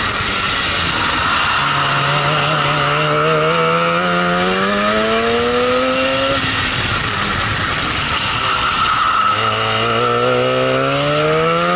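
Two-stroke Hirth kart engine heard on board under racing load. Its pitch climbs steadily for about four seconds as the kart accelerates, falls away as the driver lifts and brakes for a slow corner, then climbs again from about nine seconds in.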